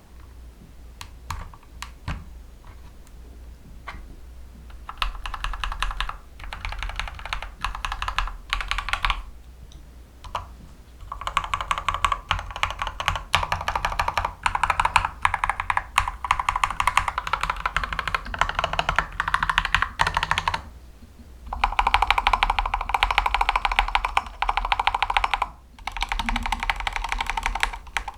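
Typing on a darkFlash GD100 mechanical keyboard with yellow linear switches: a few separate keystrokes at first, then fast continuous typing in bursts of several seconds broken by short pauses.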